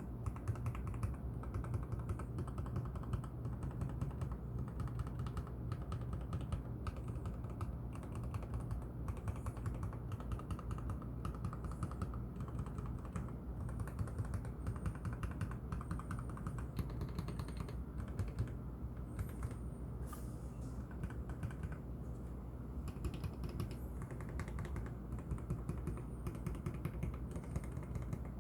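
Continuous typing on a mechanical keyboard with lubed Kailh Box Red linear switches, in a MelGeek Z70 Ultra case with O-rings between the PCB and top case, under tall XDA plastic keycaps. The keystrokes come fast and steady, a dense run of soft clicks that sit low in pitch.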